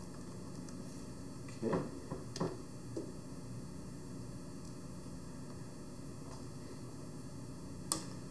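Pause in speech: a steady low hiss of room tone, with a few faint short sounds about two seconds in and a single sharp click near the end.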